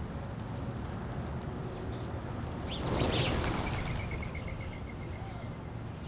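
A flock of small birds flushes off the ground all at once: a rush of fluttering wingbeats about three seconds in, with a few high chirps just before it. Right after the take-off comes a quick run of short high notes.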